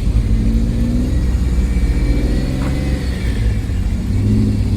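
Classic cars' big-block V8 engines rumbling loudly, with revs that climb and fall back just before the start and again near the end.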